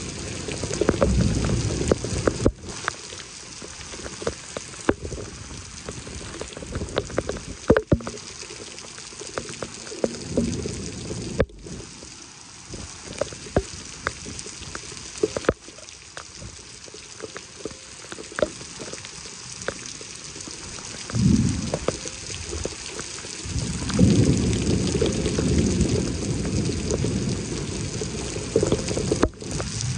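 Heavy thunderstorm rain falling steadily, with close drops ticking and splashing. Low rumbles swell and fade several times, the longest near the end.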